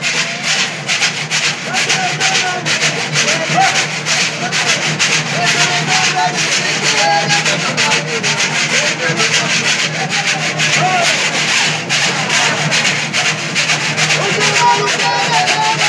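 Cururu music: a ganzá (notched bamboo scraper) scraped with a stick in a fast, steady rhythm over strummed violas de cocho, with men's voices singing the toada.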